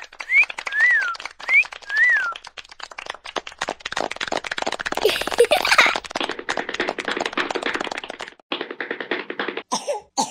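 A rapid, dense clatter of clicks like fast typing, with short whistle-like chirps that rise and fall in the first couple of seconds; it breaks off shortly before the end.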